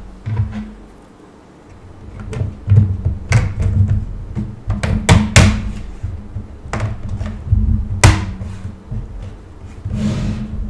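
Clicks and knocks of a 3D-printed plastic mesh side panel being handled and fitted onto a 3D-printed PC case, a run of sharp clicks with the loudest ones about halfway through and one more about three quarters of the way in, over low handling rumble.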